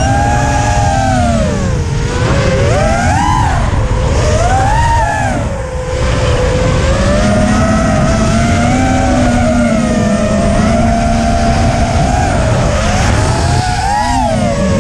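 Eachine Falcon 250 FPV racing quadcopter's brushless motors and propellers whining, the pitch swooping up and down with throttle as it banks and turns, then holding fairly steady in the middle stretch. A heavy low wind rumble runs underneath.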